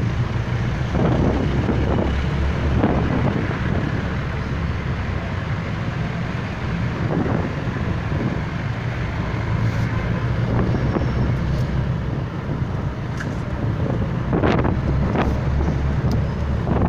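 Jeepney running through heavy rain, heard from inside: a steady low engine and road rumble under the hiss of rain, with a few sharp knocks near the end.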